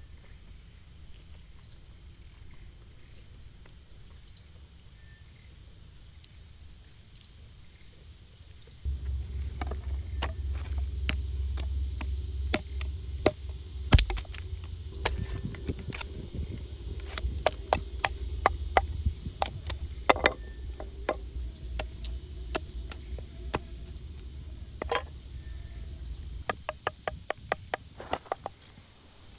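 Irregular sharp knocks and clicks over a low rumble, starting about nine seconds in, with a louder knock a few seconds later and a quick run of clicks near the end. Before that, a short high chirp repeats about once a second.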